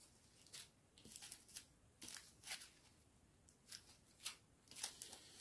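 Faint, short crinkles and rustles of small zip-lock plastic bags of round diamond-painting drills being handled, a string of brief rustles coming every half second or so.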